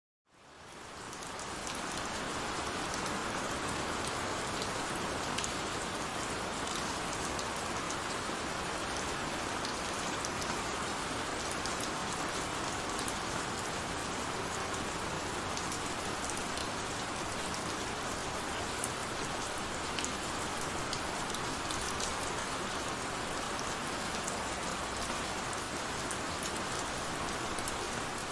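Heavy rain falling steadily: a dense, even hiss with scattered sharp drop ticks. It fades in from silence over the first couple of seconds.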